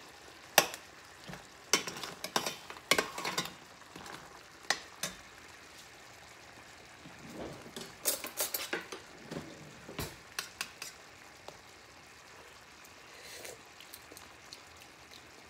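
Metal ladle clinking, knocking and scraping against a stainless steel pan as crabs in coconut milk are stirred. The knocks come irregularly through the first ten seconds or so, then stop, leaving a faint steady simmer of the sauce underneath.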